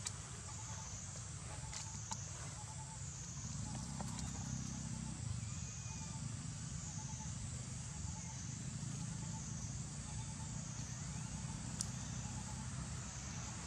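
Outdoor background sound: a high, thin whine that rises and falls about once a second over a steady low rumble, with a few faint clicks.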